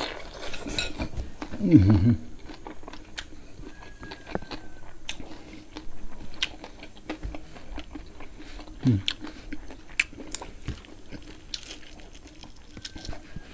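Close-up mouth sounds of people biting and chewing roasted pig head meat: many short wet clicks and smacks, with a brief hum of the voice about two seconds in and again near nine seconds.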